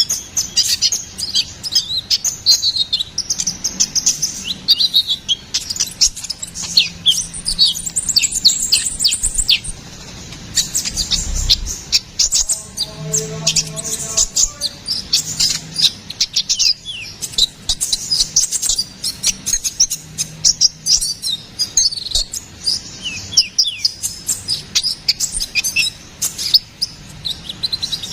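Sunbird ('kolibri ninja', konin) singing a fast, high-pitched twittering song of rapid chirps and trills, with a short pause about ten seconds in.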